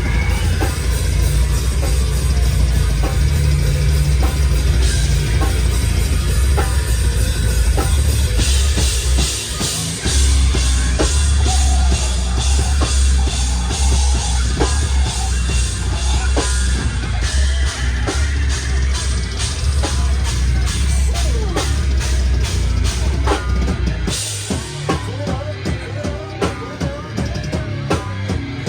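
Hardcore band playing live: a drum kit pounding under heavy bass and guitar. About 24 seconds in, the deep bass cuts away and the drums carry on over a thinner sound.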